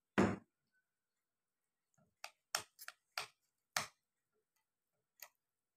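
A knock just after the start as a bottle is set down on the table, then a metal spoon and fork clinking against a ceramic bowl of chicken porridge as it is stirred: about six quick clinks in two seconds, and one more a little later.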